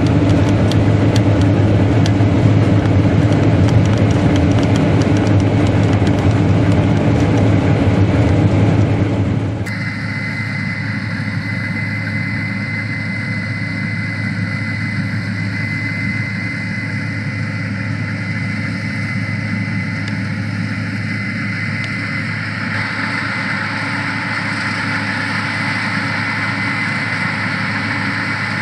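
Case IH 8120 Axial-Flow combine harvester running, a loud dense mechanical din. About ten seconds in the sound drops to a quieter, steadier running with a thin, steady high whine over it.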